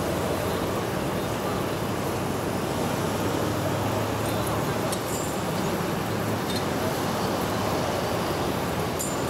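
Road traffic passing close by: a street sweeper truck, a pickup and a box truck drive past one after another, a steady drone of engines and tyres on the road.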